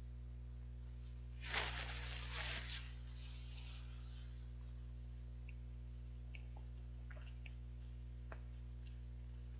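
Faint wet mouth clicks of chewing soft mochi ice cream close to a lapel microphone, over a steady electrical hum. A brief rustling noise comes about one and a half seconds in.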